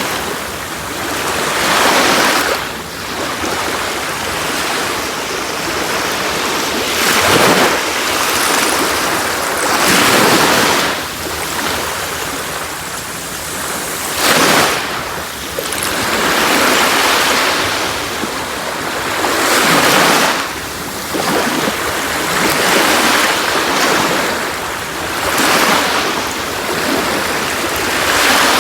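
Sea waves breaking and washing on a beach, each wave swelling and falling back every few seconds.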